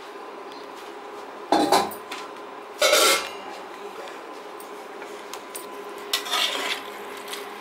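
Metal perforated skimmer spoon scraping and clanking against a metal kadhai as pasta in milk sauce is stirred: three louder scrapes, about a second and a half in, around three seconds in, and near the end, with a few lighter clinks between, over a faint steady hum.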